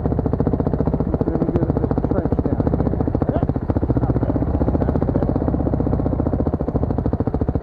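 Dirt bike engine running steadily at low speed on trail, its rapid, even firing pulses heard close to the rider.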